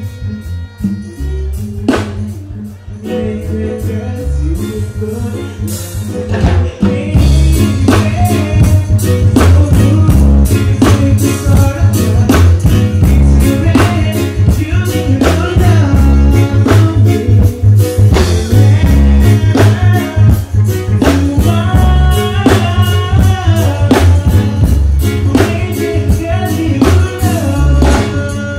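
Live music through a stage sound system: a backing track with heavy bass and a steady drum beat, with a man singing into a microphone over it. The first few seconds are thinner and quieter, and the full beat comes in about seven seconds in.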